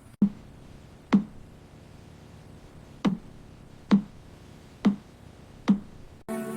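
Six deep drum hits from a background score, each sudden with a short low ring, spaced unevenly about a second apart. Near the end they give way to held synthesizer tones.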